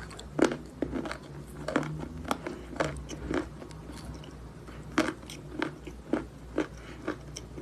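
Dry natural chalk being bitten and chewed close to the microphone: a run of sharp crunches, a few a second, irregular, with a lull of about a second and a half in the middle.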